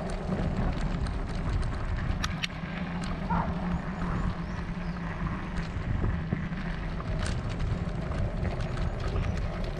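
Steady riding noise from a bicycle on a city road: wind and tyre noise, a low hum for a few seconds in the middle, and a couple of sharp clicks.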